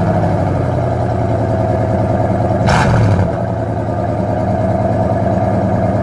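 A 1969 AMC Ambassador SST's 343 cubic-inch V8 idling smoothly through its dual exhaust, heard at the tailpipe, with one brief blip of the throttle about two and a half seconds in before it settles back to idle.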